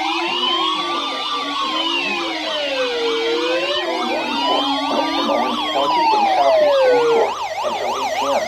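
Several emergency-vehicle sirens sounding together: slow rising-and-falling wails overlaid with a fast yelp. The wail stops about seven seconds in, leaving the yelp.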